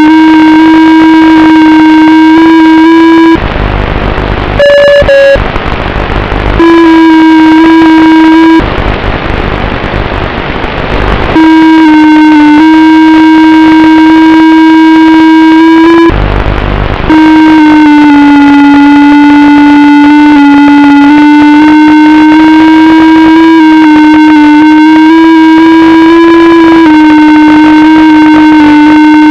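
FPV aircraft's electric motor and propeller running at a steady drone, its pitch dipping slightly and recovering in the second half. Three times the tone drops out under loud hissing noise, the longest about three seconds long.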